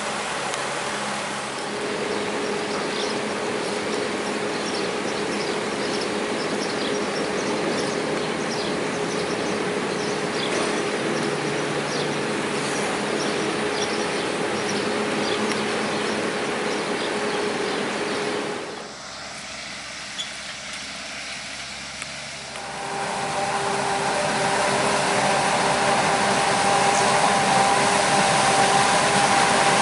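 Farm machinery running: a steady engine drone with a held tone for most of the first two-thirds, then a few quieter seconds. After that a louder engine with a higher steady whine comes in: a Claas Jaguar forage harvester chopping standing corn for silage.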